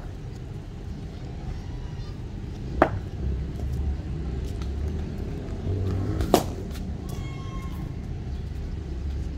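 A cricket bat striking a hard cricket ball in net practice: two sharp cracks about three and a half seconds apart, over a steady low rumble.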